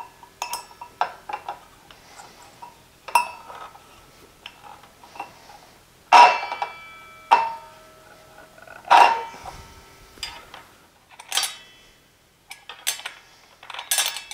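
Irregular series of sharp clinks and knocks, some ringing briefly after the strike, with the loudest about six and nine seconds in.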